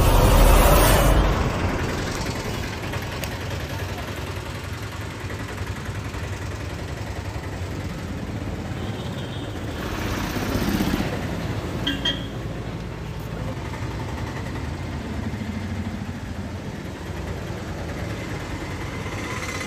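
Roadside traffic: a steady bed of engine and road noise, with a vehicle passing about ten seconds in. A loud swell opens the sound and fades within the first two seconds.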